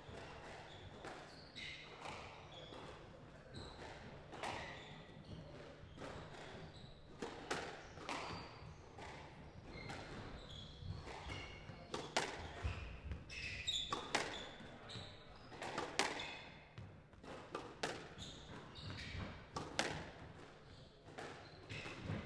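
A squash ball struck and bouncing off the court walls and floor in sharp, irregularly spaced smacks, with voices murmuring in the hall.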